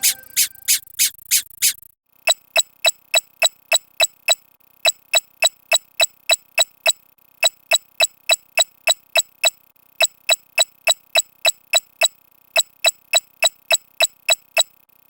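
A short, squeaky sound effect repeated about four times a second in quick runs of about eight, with a brief pause between runs.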